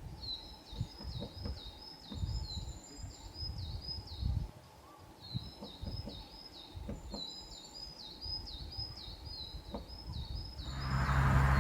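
A small songbird sings fast runs of short, repeated high notes, about four a second, with two brief breaks, over a low wind rumble. Near the end a loud rushing noise swells up.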